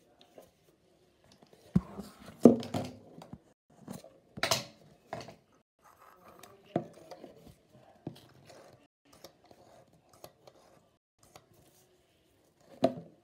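Foaming pump bottle of face wash being pumped and handled: a series of sharp clicks and knocks, with a brief hiss about four and a half seconds in.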